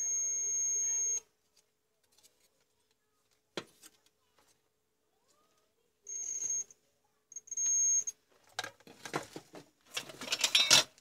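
DT9205A digital multimeter's continuity buzzer beeping as the probes close a circuit across the CFL tube's filament leads: one steady high beep of about a second and a half at the start, then two short beeps about six and seven and a half seconds in. Near the end, irregular clatter and rustling as the bulb and test leads are handled, the loudest part coming just before the end.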